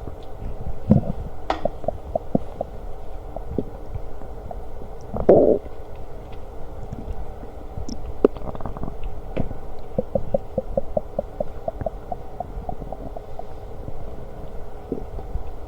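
Human stomach growling and gurgling during digestion: a low rumble with many short bubbly pops. A stronger gurgle comes about five seconds in, and a quick run of small pops follows later.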